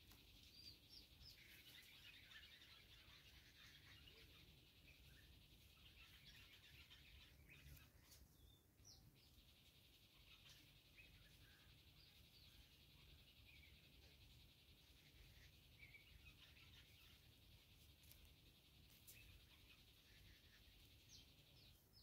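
Faint background birdsong: many short chirps and twittering calls from wild birds, scattered throughout, over a steady low rumble.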